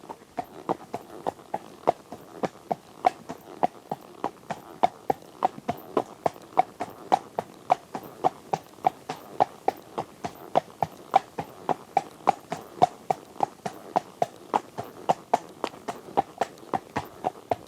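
Horse's hooves clip-clopping in a steady, even rhythm, about three sharp strikes a second.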